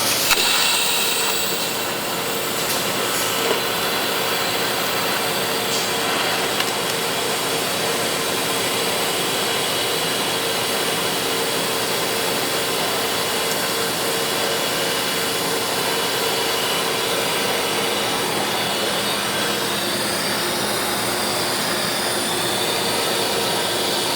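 Gas tungsten arc (TIG) welding bead in progress: a steady, unbroken hiss with a constant hum underneath, holding level without a break.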